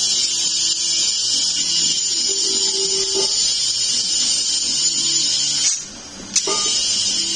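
A high-pitched power tool running steadily, stopping for about half a second near the six-second mark and starting again with a click, over soft background music.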